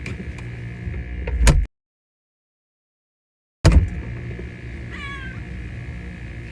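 A cat gives one short meow about five seconds in. Before it come a couple of loud thumps, and the sound cuts out completely for about two seconds in between.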